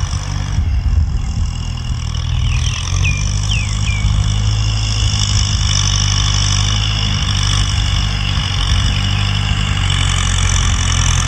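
Diesel farm tractor engine running steadily as it pulls a tillage implement through dry soil, with a few short high chirps about three seconds in.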